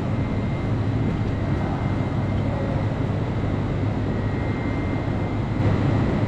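Steady drone of a jet airliner heard from inside the cabin, low and even, with a faint steady high whine above it.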